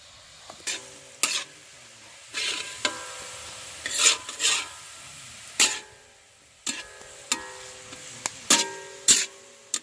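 Long metal spatula scraping and striking a large iron kadai while stirring cabbage, about a dozen irregular strokes, the heavier ones leaving the pan ringing briefly. Food sizzles faintly between strokes.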